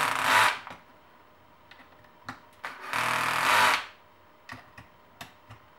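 Cordless drill/driver driving screws into the RC truck's plastic chassis guard in two short bursts, the first at the start and the second about three seconds in, with a few sharp clicks between them. Its clutch is set to 1, the lowest setting, so it slips rather than over-torquing and stripping the screws.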